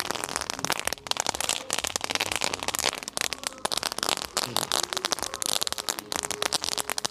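Fireworks crackling: a rapid, irregular run of sharp pops that keeps going without a break.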